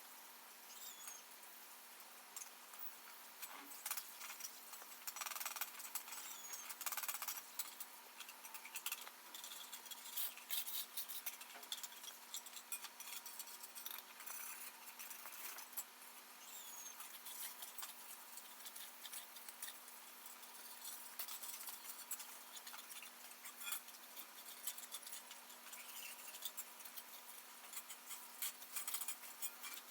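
Faint, irregular light clicks and taps, with a few brief faint high chirps.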